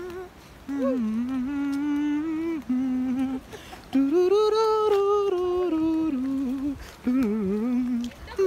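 A man humming a melody unaccompanied, in four phrases of held and gliding notes with short pauses for breath between them.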